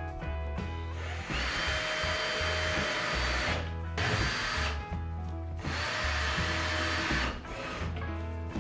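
Cordless drill-driver driving screws into wood, run twice for two to three seconds each with a steady motor whine. Background music plays throughout.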